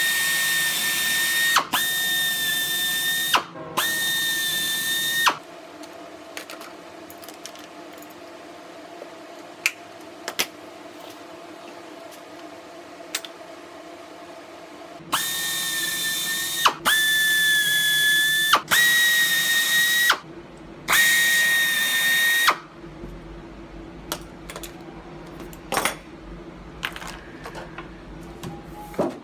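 Pneumatic air drill running in short bursts with a steady high whine and air hiss, match-drilling #41/#42 holes through aluminium elevator stiffeners into the skin. Three bursts come in the first five seconds. After a pause with a few light clicks come four more bursts.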